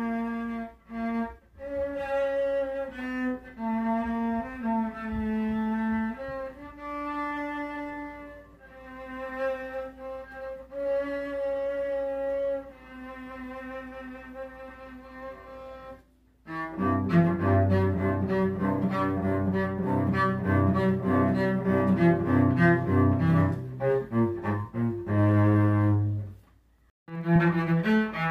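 Solo cello played with the bow: sustained melodic notes at moderate loudness, then, after a brief pause about sixteen seconds in, a louder passage in lower notes that change more quickly, with another short break near the end.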